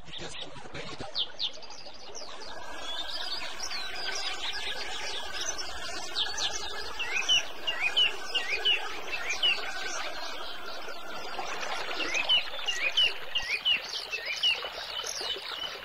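Many small birds chirping and twittering, quick chirps in rapid overlapping series, over a steady background hiss.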